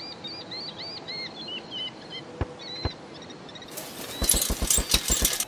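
Small birds chirping in quick rising-and-falling notes, then two sharp clicks; near the end a loud hiss sets in with a rapid run of about eight clicks.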